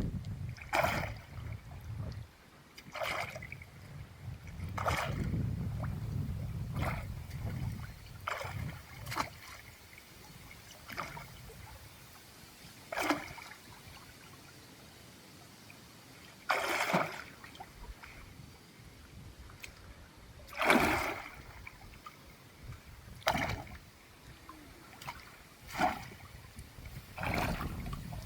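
Water splashing in short bursts every couple of seconds, some drawn out into longer sloshes, with a low rumble in places.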